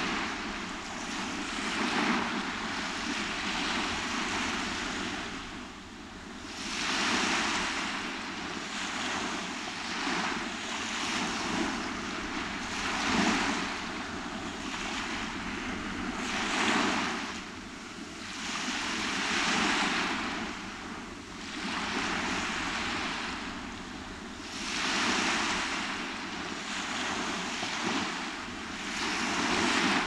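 Small waves breaking and washing up a sandy beach, the surf swelling and easing with each wave every few seconds.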